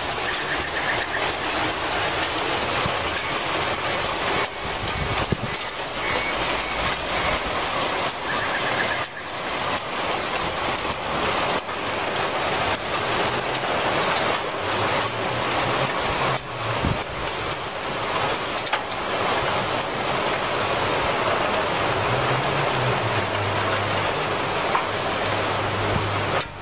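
Loud, steady roar of torrential rain and storm wind in a severe thunderstorm that is throwing up a tornado.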